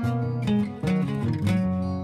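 Background music: acoustic guitar strumming and plucking.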